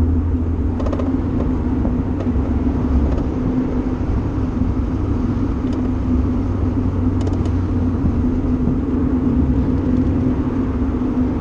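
Mazda MX-5 driving at a steady speed with the roof down: a constant engine hum with road and wind noise, heard from inside the open cockpit.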